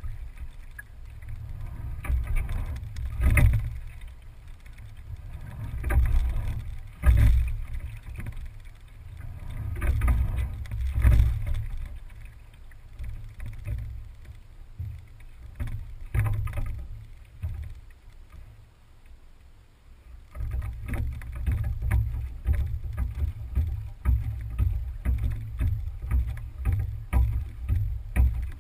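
Single scull under way on calm water: a knock every few seconds as each rowing stroke is taken, over water sloshing and a low rumble. A quieter glide follows, then about two thirds of the way through a denser, choppy splashing starts up.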